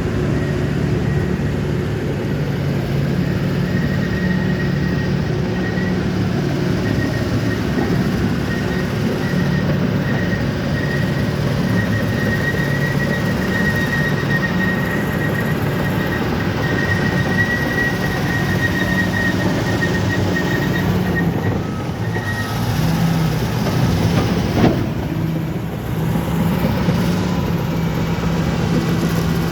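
Crawler bulldozer's diesel engine running steadily under load, with a thin high whine through much of it and a single sharp knock near the end.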